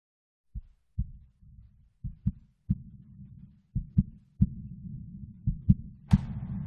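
Heartbeat sound effect opening a song: low, short thumps, mostly in pairs, about every one and a half seconds, over a low hum that grows louder. Just after six seconds a sharp hit marks the start of the music.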